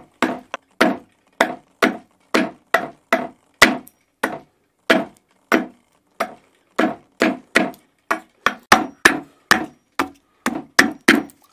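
Small hatchet chopping a beech-wood rake tooth on a wooden workbench, shaving it to a point. Quick, sharp knocks come about two or three a second, with a brief pause about halfway.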